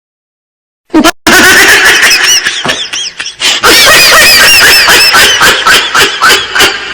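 A loud, high-pitched laughing sound that comes in after about a second of silence, in quick repeated squeaky rises and falls.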